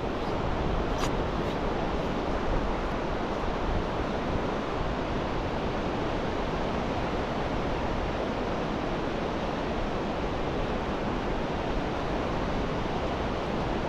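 Small surf breaking and washing over flat sand at low tide, a steady rush of noise mixed with some wind on the microphone. A brief click about a second in.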